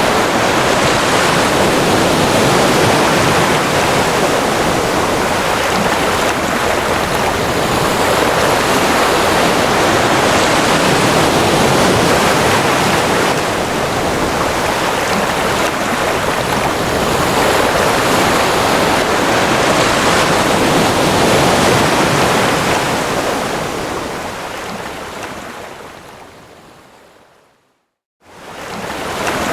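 Ocean surf washing steadily, swelling and easing slowly. It fades out to silence about 27 seconds in and swells back up a second later.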